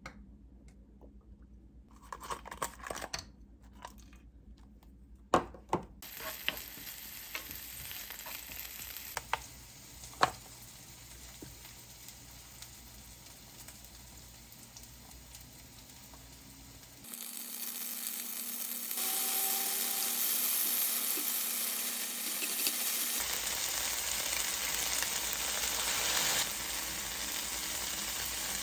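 Oil sizzling in a hot frying pan, with a few sharp taps at first; a little past the middle the sizzle jumps much louder and carries on steadily.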